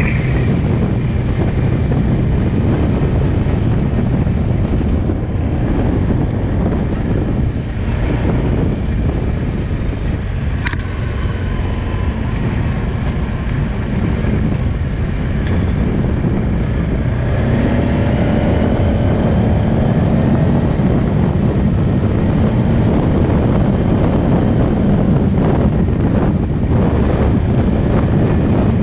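Quad bike (ATV) engine running steadily while being ridden, with wind buffeting the microphone. A single sharp knock about eleven seconds in.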